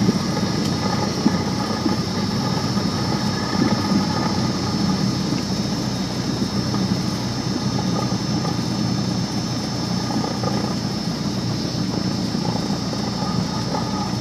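Small single-engine propeller plane's engine running at low power, heard from inside the cabin as a steady drone with a constant high whine on top, while the plane rolls out on the runway after touchdown.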